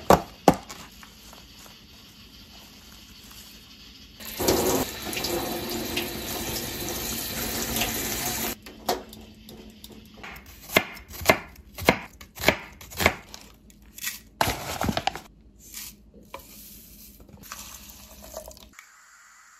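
Kitchen tap running steadily into a stainless steel sink for about four seconds while salad greens are rinsed in a mesh strainer, then a string of sharp knocks, about two a second. It opens with a short rustle of a plastic salad pack being opened.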